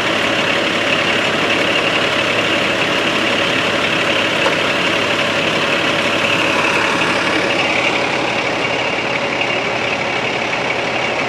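A large vehicle's engine idling, a steady drone with hiss.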